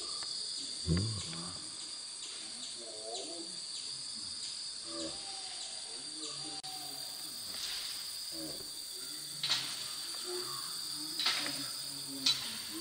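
Steady high insect drone from the undergrowth, with faint low wavering sounds beneath it. A low thump about a second in and a few sharp cracks in the second half, like twigs snapping.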